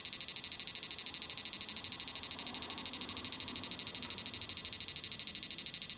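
Repaired electric-fishing inverter running under test, giving a steady high-pitched hiss with a rapid, even pulsing. It is now switching on both halves after its burned FETs were replaced, and it is heating up quickly.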